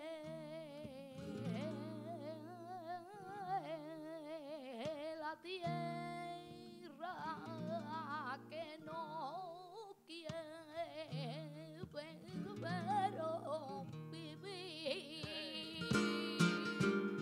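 Woman singing flamenco cante with long, heavily ornamented melismatic lines, accompanied by a flamenco guitar. The guitar plays louder, denser strokes near the end.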